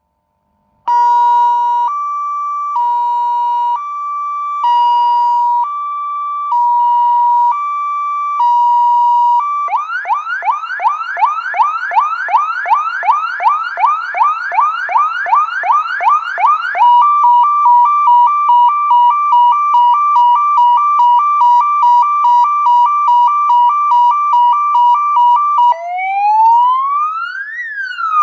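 PA300 electronic police siren cycling through its tones: after a brief silence, a two-tone hi-lo alternating about once a second; about ten seconds in, a fast yelp of rapid rising sweeps, three or four a second; about seventeen seconds in, a rapid warble between two close tones; near the end, a slow wail rising and beginning to fall.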